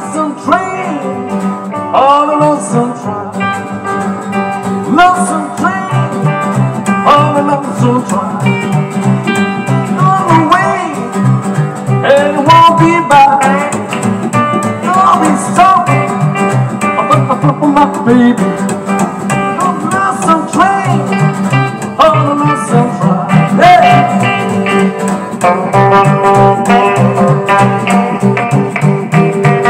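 Rock'n'roll band playing an instrumental break with no singing: guitar lead lines with bent notes over a steadily plucked upright double bass and rhythm guitar.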